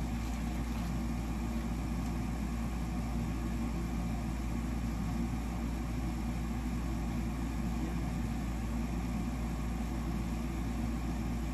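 A steady, low mechanical hum from a running machine, unchanging throughout.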